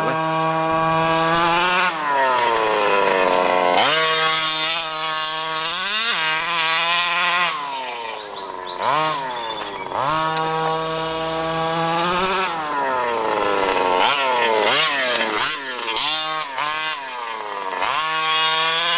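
HPI Baja 5T's small two-stroke petrol engine on its first tank of fuel, revving up and down again and again as the RC truck is driven, idling between throttle bursts. Near the end come several short, quick throttle blips.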